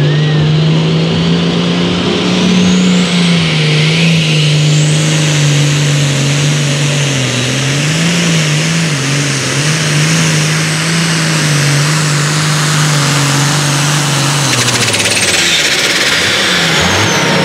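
Turbocharged diesel engine of an Allis-Chalmers light limited super stock pulling tractor running at full throttle under load as it drags the pulling sled, its pitch held high with small wobbles and a high whistle over it. About fifteen seconds in the engine backs off and its note and the whistle fall away at the end of the pull.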